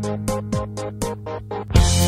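Background music with a steady beat of about four hits a second over a held bass line. It gets louder and fuller near the end.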